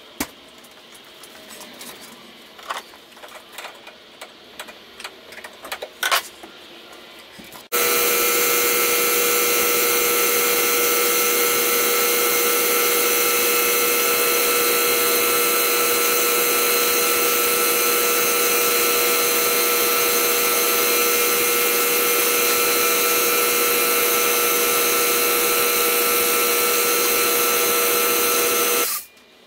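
A motor-driven power tool or machine running steadily at one constant speed, switching on abruptly several seconds in and cutting off abruptly near the end. A few light clicks and taps come before it.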